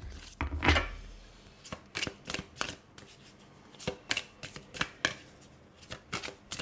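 Tarot cards being handled and shuffled by hand: a dozen or more quick, irregular card snaps and slides, the loudest about a second in.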